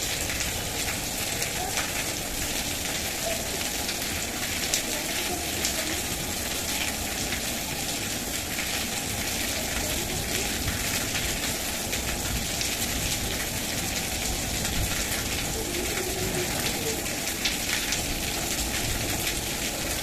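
Heavy rain falling steadily, with many sharp ticks of drops striking close by.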